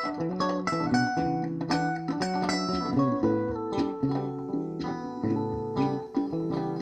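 Background music: fast plucked guitar picking, a quick run of bright notes over steady lower ones.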